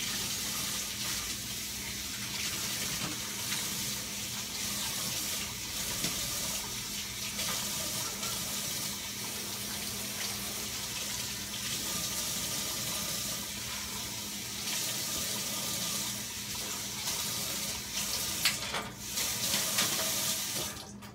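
Kitchen tap running steadily into a stainless steel sink while raw chicken livers are rinsed under the stream by hand, with a few light knocks near the end.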